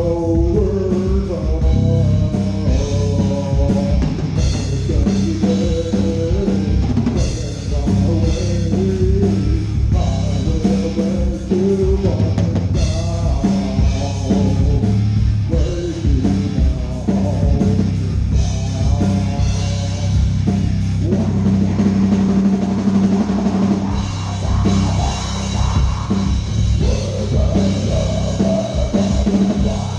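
Live rock band playing a full run-through at a sound check, drum kit driving under melodic lines. The music is loud and continuous.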